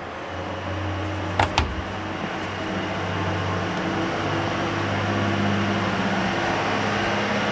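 A steady machinery hum with a low drone, growing a little louder over the first few seconds. Two sharp clicks come about a second and a half in, as the ice maker's door is shut.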